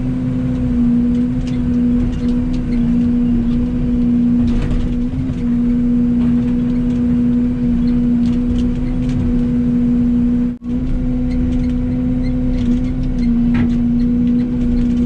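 Yanmar excavator's diesel engine running steadily under working load while loading heavy pipe, its drone dipping slightly in pitch now and then, with a few faint knocks. The sound drops out for an instant about ten and a half seconds in.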